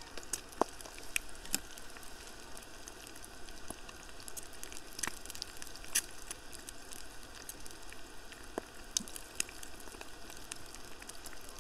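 An egg frying in oil in a small pan on a portable gas canister stove, sizzling steadily with frequent sharp pops and crackles.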